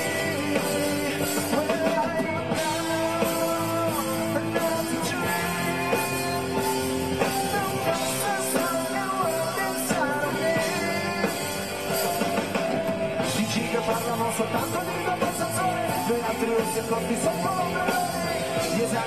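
A live band playing a rock song, a male lead singer singing into a microphone over the band.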